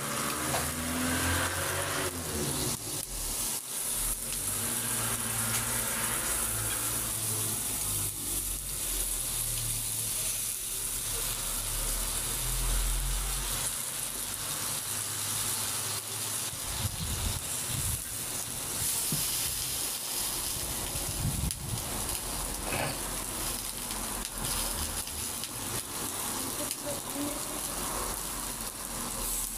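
Green peppers and tomato halves sizzling steadily on an electric sac griddle, with a low rumble underneath for about the first half.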